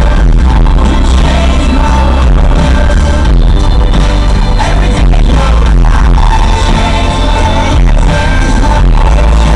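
Loud music with a singing voice and a heavy, steady low end.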